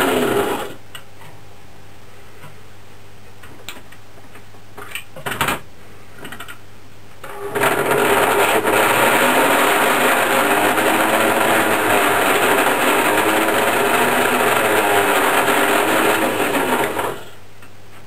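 Lionel Burro crane's small electric motor and gearing whirring as the crane is worked: a short run at the start, a couple of clicks in the middle, then a longer run of about ten seconds that wavers in pitch and stops about a second before the end. A low steady hum sits underneath throughout.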